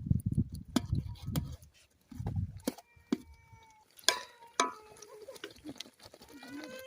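A farm animal calling briefly twice, the second call wavering near the end, amid scattered clicks and knocks and low thumping in the first half.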